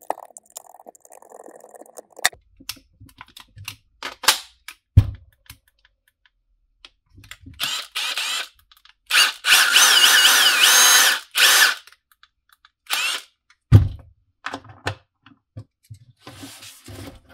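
Milwaukee M18 Fuel brushless 1/4" hex impact driver run free with no load as a test after reassembly: a short burst, then about two seconds of running whose pitch rises and falls as the trigger is feathered, then two more short bursts. Before it come clicks and knocks of the tool being handled, and a soft rustle near the end.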